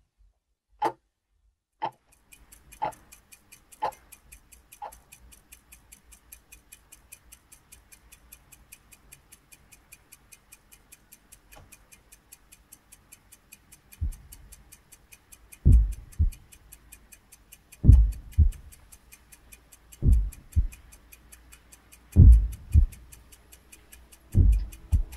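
Sound-design soundtrack: a clock-like tick once a second for the first few seconds, joined by a fast, even ticking. From about halfway a deep double thump, like a heartbeat, comes every two seconds or so.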